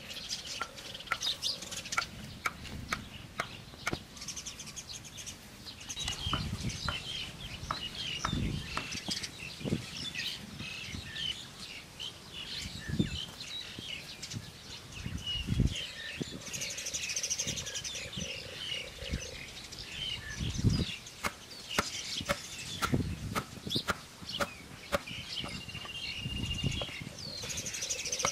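Hand tools working wood and earth: sharp irregular knocks from a machete chopping sticks and stakes, and now and then a dull thump of a pole pounding the ground. Birds chirp throughout, with one held whistle near the end.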